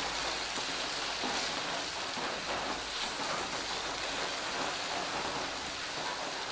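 Bacon and ham sizzling steadily in a hot frying pan.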